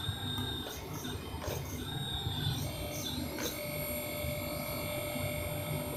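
Hydraulic pump of an RC excavator running with a steady low hum, while the servos on the control-valve block whine in short spurts as they shift the valves, with a few light clicks.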